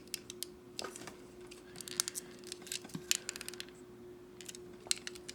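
Small plastic model-kit parts clicking and tapping as they are handled and pressed together, in a scattered run of sharp little clicks over a faint steady hum.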